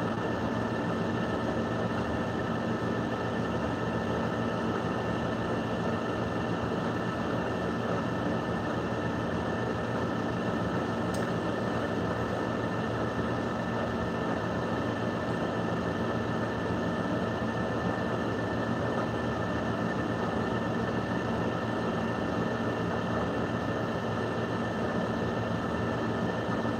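A steady mechanical hum and hiss with a few faint constant tones, holding an even level without change.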